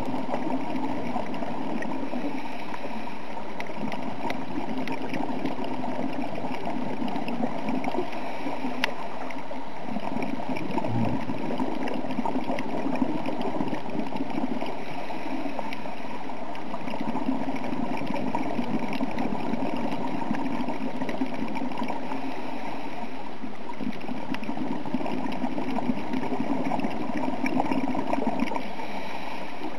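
Underwater noise heard through a dive camera's housing: a steady gurgling rush that swells and fades every few seconds, with faint scattered clicks.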